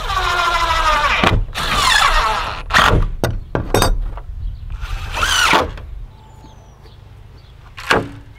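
Cordless drill driving screws through metal door hinges into a wooden frame, in three short runs; the pitch of the first run falls as it goes. A few light clicks and knocks fall between the runs.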